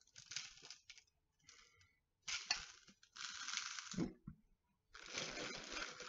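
Fingers brushing and pushing fine sand over and between small stones in a ceramic planter bowl: a gritty rasping scrape that comes in five short spells of about half a second to a second each.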